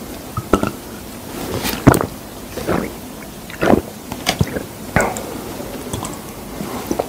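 Gulping water from a plastic bottle: a series of separate swallows, roughly a second apart.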